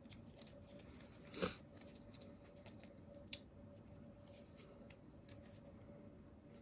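Faint handling noise of the Insta360 One RS action camera as its plastic parts are fitted together: light rubbing and small ticks, with one louder scrape about a second and a half in and a single sharp click a couple of seconds later.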